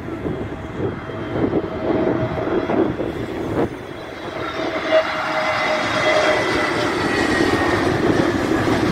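Airbus A320neo jet airliner on final approach passing low overhead: the engine noise and whine build from about four seconds in, with high tones falling slowly in pitch. Gusts of wind on the microphone run underneath.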